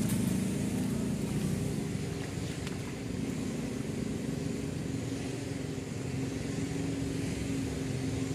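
A motor running at a steady speed, a constant low drone with no change in pitch.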